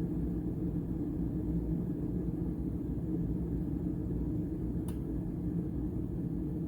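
Mecity glass-and-stainless electric kettle heating a full pot of water, a steady low rumble of water coming up to the boil, with a single faint tick about five seconds in.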